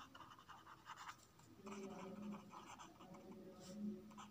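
Faint scratching of a marker pen writing on paper, a quick run of short strokes as words are written out.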